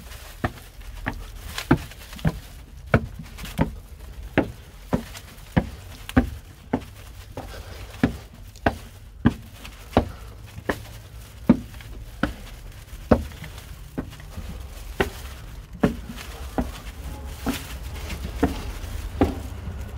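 Footsteps climbing a narrow brick spiral staircase, about three steps every two seconds, with a boxy sound from the enclosed stairwell.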